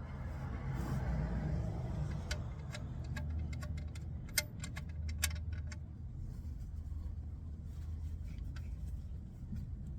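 A run of light, irregular metallic clicks and clinks, like hand tools being handled during an oil change, over a steady low hum. The two sharpest clinks come about four and five seconds in.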